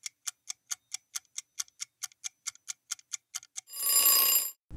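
Countdown timer sound effect: a clock ticking about five times a second, then a bell-like ring for nearly a second as the time runs out, and a low thump right at the end.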